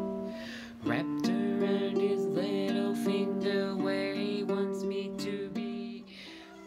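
Baritone ukulele being plucked, several notes ringing together in a slow improvised phrase that fades about six seconds in.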